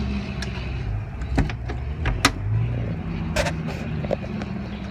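Fiberglass floor-storage hatch lid being lowered shut on a boat deck, giving a few sharp knocks and clicks over a steady low hum.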